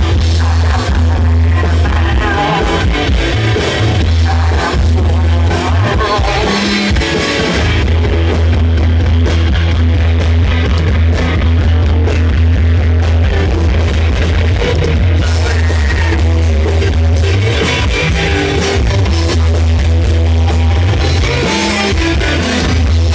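Live rock band playing loud on stage: electric guitars, bass guitar and drums, with a heavy booming bass line under everything. Poor-quality recording.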